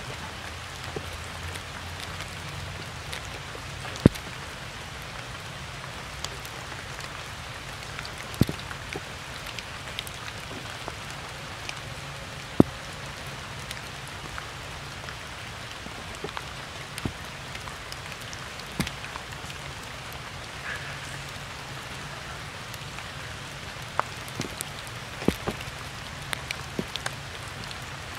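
Steady rain falling on wet stone and puddled ground, with scattered sharp taps standing out from the even hiss.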